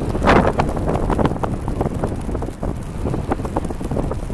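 Wind buffeting the microphone in uneven gusts, with a low rumble; the strongest gust comes about half a second in.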